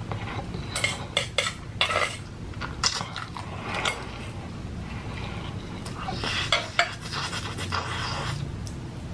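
Eating utensils clicking and scraping against a bowl of ramen noodles while they are picked up and eaten. A quick run of clicks comes in the first two seconds, single clicks follow at about three and four seconds in, and a longer, busier stretch of handling comes around six to seven seconds in.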